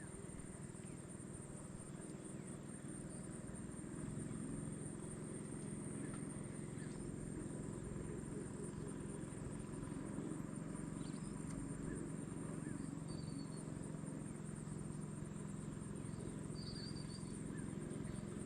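Insects droning steadily at a high pitch, with a low steady hum underneath that grows louder about four seconds in and a few short bird chirps near the end.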